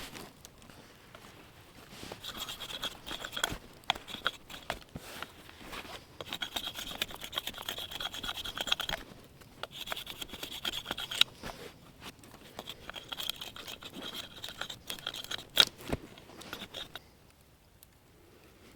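Repeated scraping and rubbing strokes in several bouts of a second or three, with quiet gaps between them, scattered small clicks and one sharper knock near the end.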